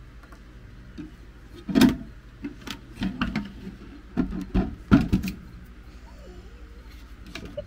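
Knocks and clunks of a small glass terrarium being turned over and handled on a wooden table, a handful of sharp knocks over the first five seconds, the loudest about two seconds in.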